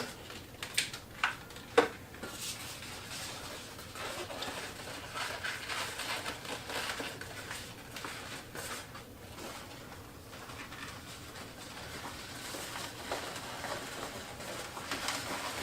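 Latex twisting balloons being twisted and handled: a few short sharp clicks in the first two seconds, then soft irregular rubbing of the rubber.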